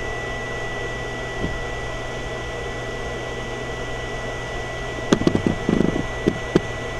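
Steady fan and electrical hum with a thin, steady high whine from the running pulse circuit and its cooling fan. A few short knocks come about five to six and a half seconds in, as the camera is handled.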